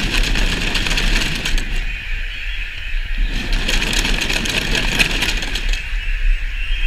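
Many children shaking and banging homemade noisemakers, plastic bottles and tubes filled with loose objects, in a dense, fast, continuous rattling clatter that imitates a mascletà's firecrackers.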